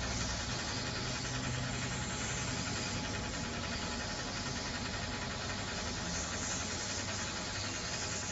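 Steady airflow hiss of a hot-air rework gun blowing on a circuit-board chip to melt the solder on its pins, with a faint electrical hum beneath.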